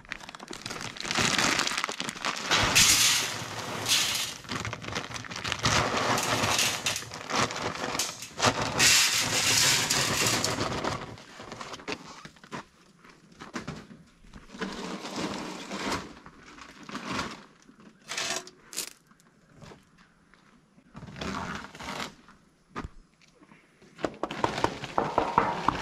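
Shelled corn being poured from a bag into a deer feeder: a continuous rattling rush for about ten seconds, then scattered shorter rustles and crackles.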